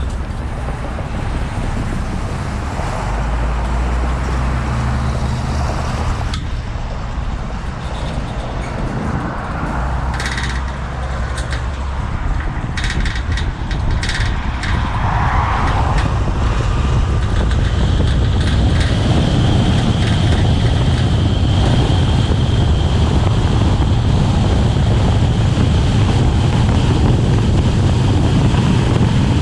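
Vehicle engine and road noise: a low steady engine hum sets in a few seconds in, and about halfway through it builds into a louder, even rush of road and wind noise as the vehicle gets moving.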